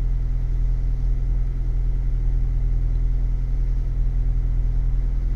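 Ford Bronco 2.3-litre turbo four-cylinder idling steadily on a cold morning, in neutral with the clutch pedal pushed in. The grinding from the 7-speed manual transmission is gone with the clutch depressed, typical of the TSB fault in the 5th and 6th gear synchronizer rings.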